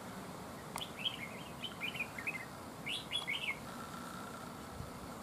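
Red-whiskered bulbuls singing: several quick runs of short, chirpy notes in the first three and a half seconds.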